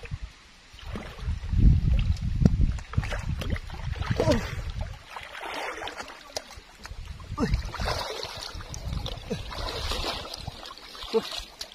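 Water sloshing and gurgling as a person wades into lake water, with heavy low rumbles about a second in and again near seven seconds.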